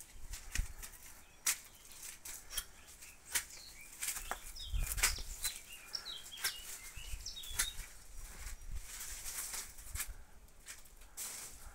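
Garden plants being pulled and broken: leaves rustling with a run of sharp snaps and clicks. A few short bird chirps come in the middle.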